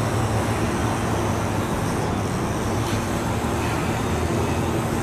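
Steady low mechanical hum and rumble, like an engine or road traffic running continuously in the background.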